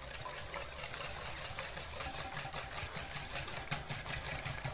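Whisk beating eggs into an oil-and-sugar cake mixture in a bowl: a steady, even run of quick strokes.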